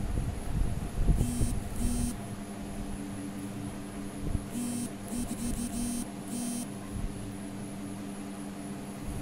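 Electric hair clipper running with a steady buzz, its tone briefly changing and brightening about six times.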